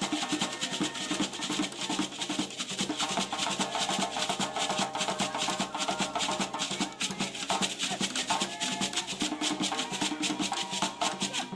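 Traditional West African drumming for dance: a fast, steady run of drum and wood strikes, with pitched sounds under it.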